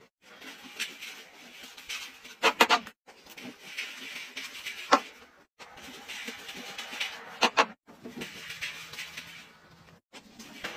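Arm & Hammer laundry powder scooped from its cardboard box with a plastic scoop and poured into a washing machine drum: stretches of gritty, hissing pouring and scraping, each cut off abruptly, with a few sharp clicks of the scoop.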